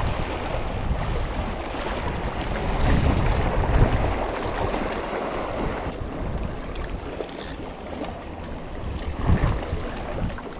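Wind buffeting the microphone over the wash of the sea, the low rumbling gusts heaviest in the first few seconds and easing after.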